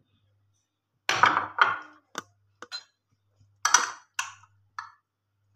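Glass dishes and a spoon clinking and knocking: several sharp clatters, a cluster about a second in and another near four seconds, with single clicks between, over a faint low hum.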